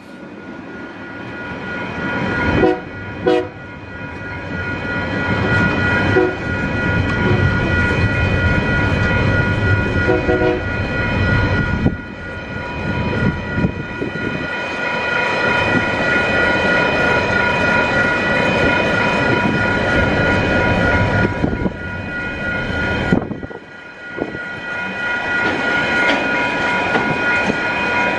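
Tasrail freight train passing at close range: diesel-electric locomotives running, then container wagons rolling by with wheel clatter on the rails. Short horn-like toots come about 3 s and 10 s in, and later a steady high-pitched squeal rides over the rumble.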